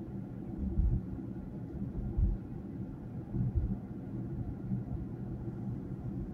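Low, steady rumble of a car driving, heard from inside the cabin: engine and road noise with a faint hum, broken by a few dull low thumps.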